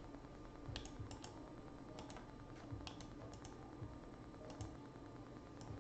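Faint, irregular computer keyboard clicks, a dozen or so keystrokes, some in quick pairs.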